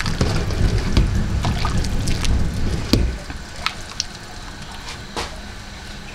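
Kitchen work on a pot of noodle soup: liquid sloshing and pouring, with scattered clinks and knocks of utensils. A loud low noise drops away about three seconds in, leaving only the occasional clink.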